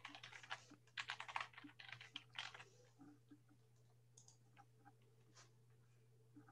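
Faint typing on a laptop keyboard: quick runs of keystrokes for about the first two and a half seconds, then only a few scattered key clicks.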